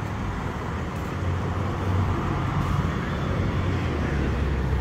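Motor vehicle engine running steadily with a low hum, over street traffic noise.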